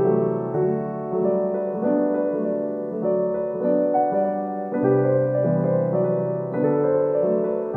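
Background piano music: a gentle, slow piano tune.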